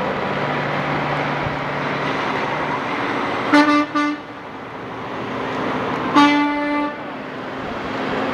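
Horn of a NASCAR team's tractor-trailer hauler honking as it drives past: a short double toot about three and a half seconds in, then one longer blast a little after six seconds. Under it the truck's engine and road noise rumble steadily.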